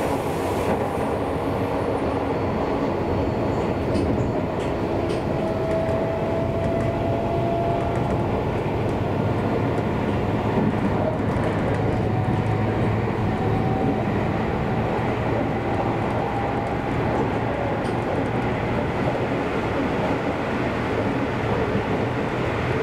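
Seibu Railway train running at speed, heard from inside the carriage: a steady rumble of wheels on rail, with a faint whine that rises slowly, twice.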